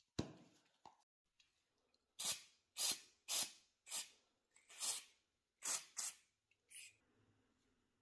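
Aerosol spray can hissing in about nine short bursts, roughly one every half second to second, as wooden balls are sprayed with a wood treatment.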